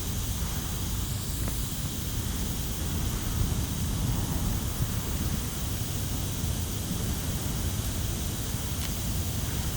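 A wood campfire with a couple of faint crackles over a steady low rumble and hiss of background noise.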